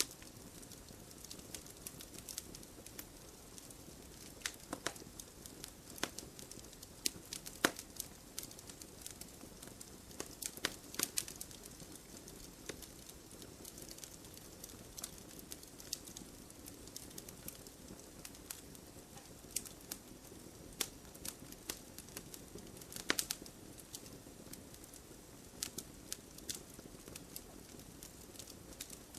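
Wood fire burning in a fireplace: logs crackling with irregular sharp pops over a soft steady hiss.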